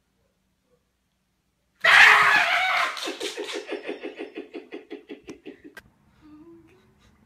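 A person's sudden loud shriek about two seconds in, breaking straight into rapid bursts of laughter that trail off.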